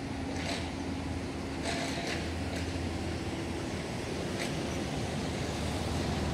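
Steady rumble of a train running on an elevated rail viaduct, its hum fading about halfway through.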